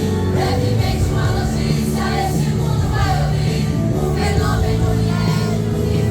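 Youth vocal group singing a Christian gospel song together over instrumental accompaniment.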